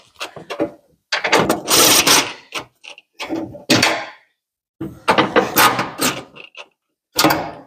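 Scraping and clunking of a battery box being worked into place, in several short bursts with pauses between.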